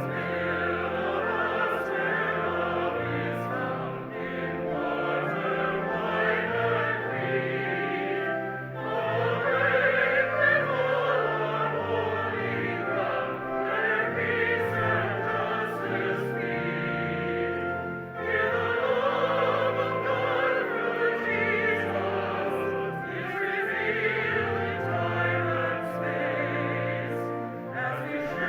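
Voices singing a hymn verse over sustained organ chords, in phrases with short breaks between them.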